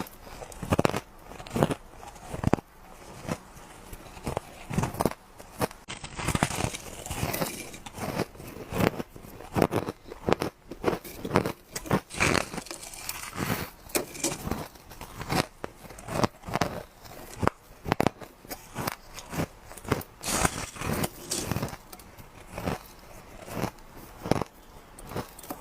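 A person biting into ice and crunching it between the teeth, in a rapid, irregular series of sharp crunches.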